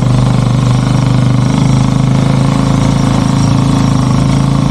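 Sidecar motorcycle's engine running steadily, loud, with a rapid even throb.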